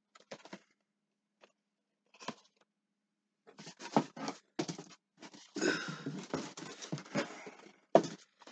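Boxed action-figure packaging of cardboard and plastic being handled: a few short rustles and scrapes at first, turning into denser rustling from about three and a half seconds in, with sharp knocks near four seconds and again near the end.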